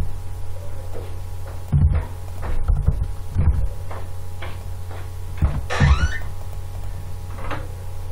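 Computer keyboard and mouse clicks knocking now and then over a steady low electrical hum from the microphone, with a brief rising squeak about six seconds in.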